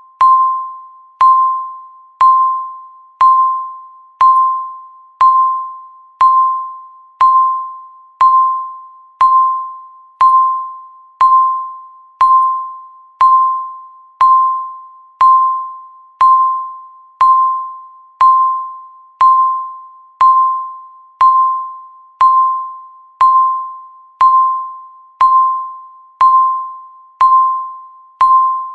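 Countdown timer beep sounding once a second: a single clear tone that starts sharply and dies away before the next, repeating evenly, one beep for each second left.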